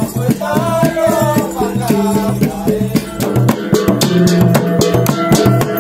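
Music: drums and rattles keep a steady beat under a wavering melody, with low tones repeating in a regular pattern.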